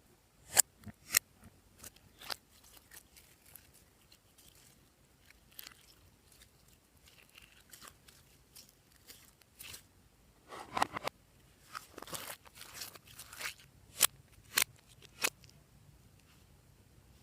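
Glossy slime being squeezed and mixed by hand, giving scattered sharp clicks and pops, with two short runs of crackling past the middle.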